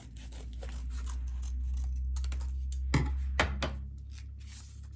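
Scissors being picked up and handled against a heat-sealed plastic bag, with rustling and a string of small clicks; the sharpest clicks come about three seconds in. A low steady hum runs underneath.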